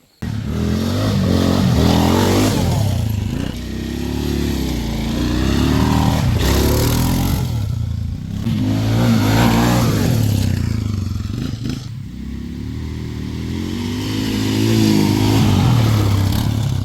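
Suzuki Vinson 500 ATV's single-cylinder engine revving hard as it is ridden, its pitch climbing and falling back about four times.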